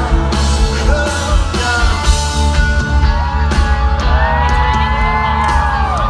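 A rock band playing live and loud: heavy bass and drum hits under sustained guitar or vocal lines that bend and slide in pitch.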